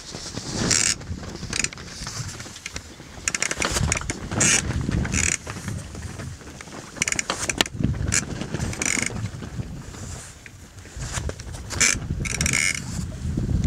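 Creaks and clicks from the rigging and wooden blocks of a three-masted sailing lugger under way, coming irregularly every second or two, over a low rumble of wind on the microphone.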